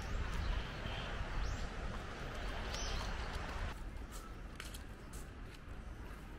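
Outdoor park ambience with wind rumbling on the microphone and a few short bird chirps. About four seconds in, the wind noise drops away, leaving a quieter background with faint high calls.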